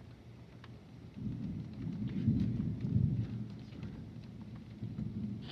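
Rolling thunder: a deep rumble that swells about a second in, is loudest around two to three seconds in, then fades away.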